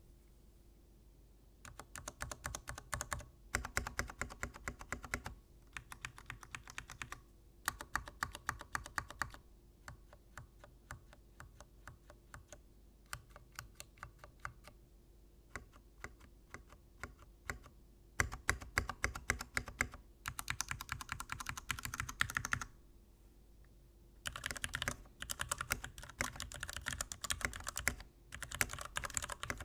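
Typing on a Varmilo 65% mechanical keyboard with Cherry MX Nature White linear switches, in runs of rapid keystrokes broken by short pauses. The keystrokes have a scratchy sound that the owner blames on the switches.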